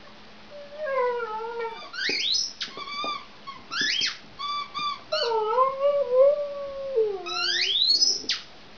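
Hokkaido dog howling and whining in a string of drawn-out, wavering calls that sag in pitch, broken by short cries that sweep sharply up into high squeals.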